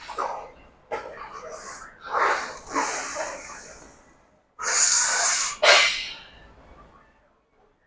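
Several sharp, forceful breaths in a row from a lifter bracing under a loaded barbell before a squat, the loudest about five seconds in.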